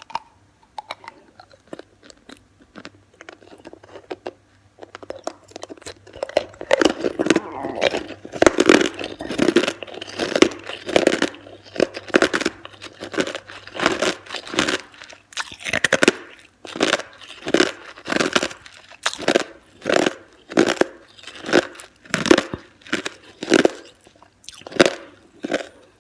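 Ice being bitten and chewed close to the microphone: sharp, crisp crunches, sparse at first, then coming steadily about once or twice a second.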